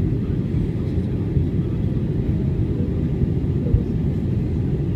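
Steady low rumble of an airliner's engines and airflow heard inside the passenger cabin.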